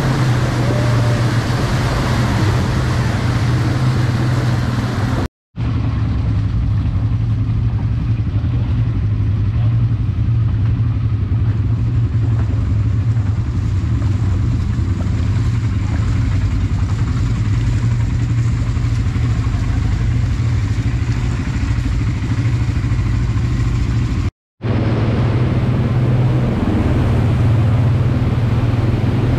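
Quad bike (ATV) engines running steadily as the quads drive through a shallow rocky river, with rushing, splashing water. The sound cuts out briefly twice.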